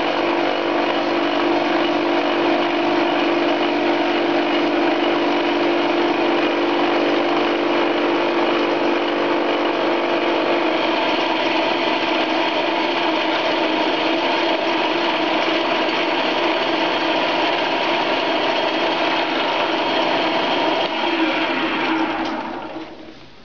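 Cheap Chinese 10 x 18 metal lathe spinning a homemade dual-tipped indexable carbide fly cutter at 1400 rpm, taking a full 1 mm interrupted facing cut through very hard steel: a steady, loud cutting noise with no shake or rattle. Near the end the cut is finished and the lathe runs down.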